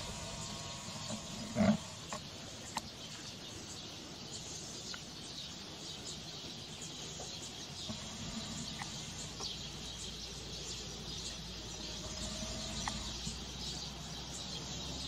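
Rural outdoor ambience: a steady high hiss with faint scattered chirps, and one short, loud animal call about two seconds in.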